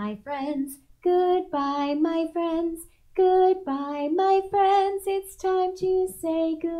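A woman singing a simple children's song in short phrases, each syllable held on a steady note, with no other instrument heard.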